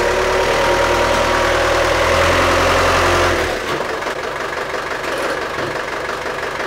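Ford Transit 2.5DI four-cylinder diesel engine under light throttle as the van drives up onto wheel ramps. About three and a half seconds in, the revs drop back and it runs on at idle.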